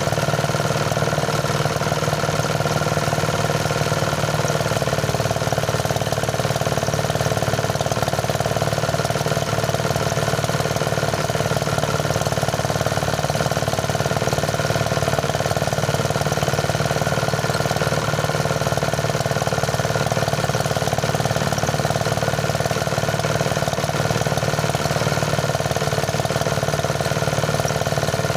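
Engine-driven rice thresher running steadily at constant speed, a continuous mechanical drone with no change in pitch or loudness.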